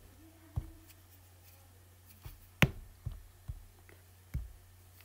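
Apple Pencil tip tapping on the iPad's glass screen: about seven separate sharp clicks, the loudest about two and a half seconds in, while the pen misbehaves. A faint steady low hum runs underneath.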